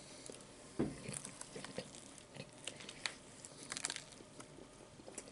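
A bite into a sourdough chicken club sandwich about a second in, then chewing with irregular small crunches and clicks.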